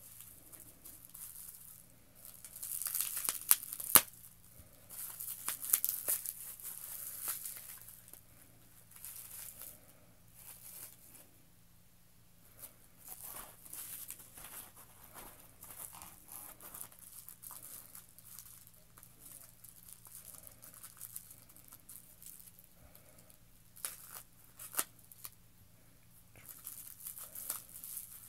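Bubble wrap and plastic packing crinkling and tearing in irregular bursts as it is pulled off small plastic helmets, loudest a few seconds in and again near the end, with a sharp click about four seconds in.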